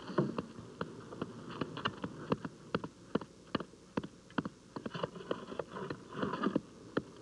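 Steel hand tamper striking a freshly placed patch of wetted recycled-asphalt mix in a pothole, compacting the fill: a quick, uneven run of sharp knocks, about three a second.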